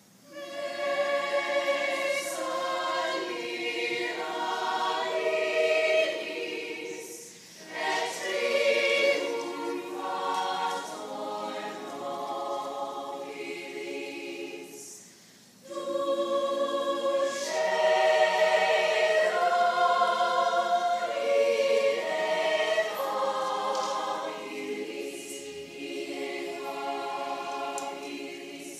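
A choir of women's voices, the cast dressed as nuns, singing in long phrases, with short breaks about seven and fifteen seconds in.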